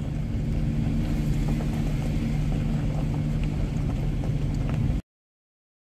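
Off-road vehicle's engine and drivetrain running steadily at low speed on a dirt trail: a low, even hum with scattered light ticks and rattles. It cuts off suddenly about five seconds in.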